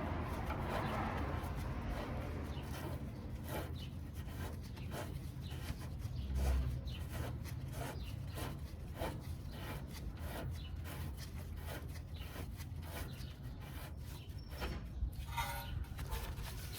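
Rhythmic metal-on-metal rubbing and scraping, about two strokes a second, as a new outer tie rod end is turned onto the inner tie rod.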